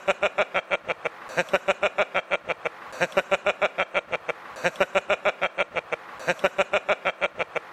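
A man laughing without letup in quick, even "ha-ha-ha" pulses, about seven a second, in runs of a second or so broken by short breaths.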